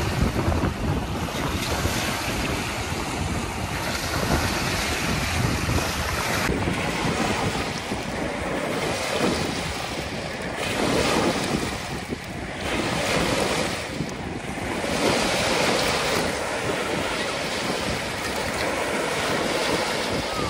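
Small wind-driven lake waves breaking and washing up over a sandy shore, swelling and easing every few seconds, with wind buffeting the microphone.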